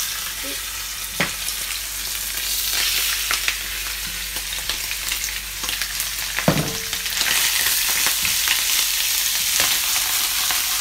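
Shrimp sizzling in hot oil in a frying pan just after being tipped in, a steady loud hiss that grows a little louder about seven seconds in. A few sharp knocks come from the pan, about a second in and again near the middle.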